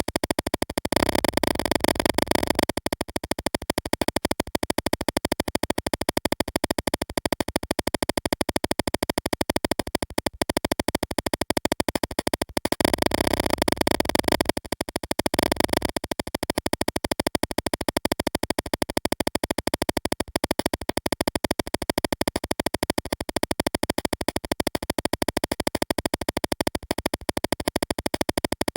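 Background music with a fast, even pulse, fuller and louder about a second in and again from about thirteen to sixteen seconds in.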